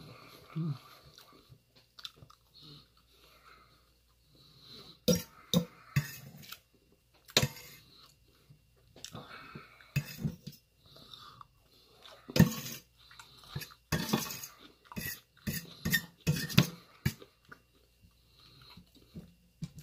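Chewing on a mouthful of Chinese takeout fried rice and meat, with a metal fork clinking and scraping against a stainless steel plate in sharp clicks scattered through the second half.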